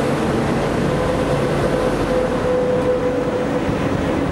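OSE class 220 locomotive and its passenger coaches rolling slowly past along the platform: a steady rolling rumble with a humming tone over it.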